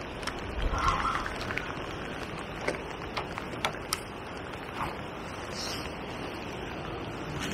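Steady wind and rain, with a gust buffeting the microphone about a second in and a few scattered ticks.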